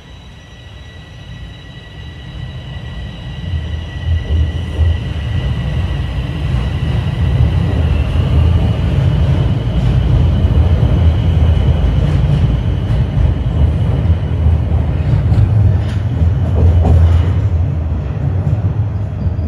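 Bombardier Toronto Rocket subway train pulling out of the station, building from a quiet start to a loud, steady rumble of wheels on rail over the first five seconds or so. A high whine rides over it in the first several seconds and then fades.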